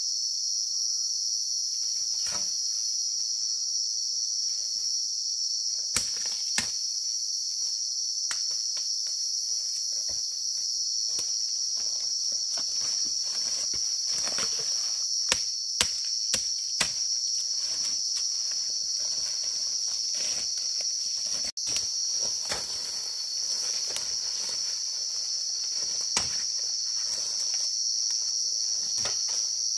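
A steady, high-pitched drone of insects in the forest, with a handful of sharp knocks of a hoe striking the ground and bamboo roots while digging for bamboo shoots, clustered around the middle.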